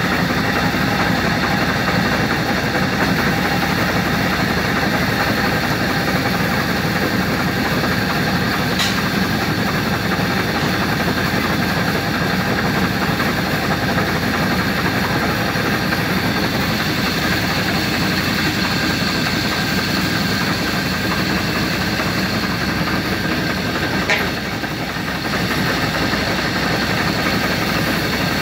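Steady engine-like drone with a faint hum, broken by two brief clicks, the second followed by a short dip in level.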